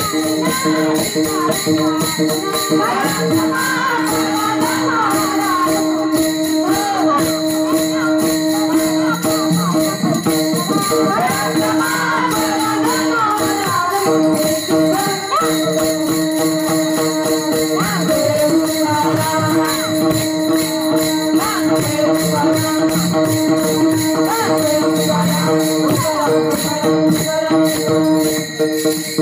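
Warkari bhajan in raag Bhairavi: many pairs of small brass hand cymbals (taal) clash in a fast, steady rhythm over a sustained drone. Voices sing above them, most clearly in the first half.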